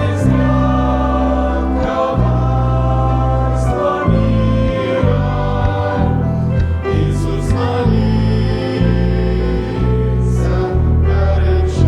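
A choir singing a Christian song with instrumental accompaniment, over a bass line that changes note about once a second.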